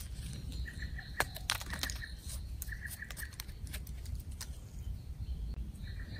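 A bird calling in short repeated notes, in several small groups, over scattered clicks and rustles.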